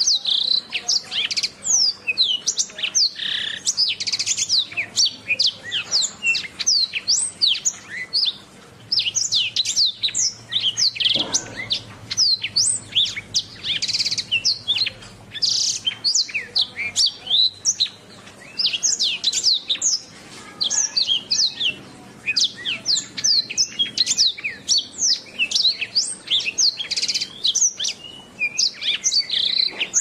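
Domestic canary singing a long, nearly unbroken song of rapid chirps, trills and rising and falling whistles, with a few brief pauses.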